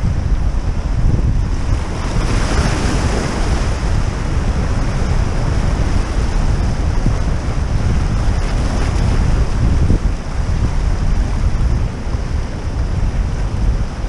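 Wind buffeting the microphone over surf washing against rocks, with a louder surge of surf about two seconds in.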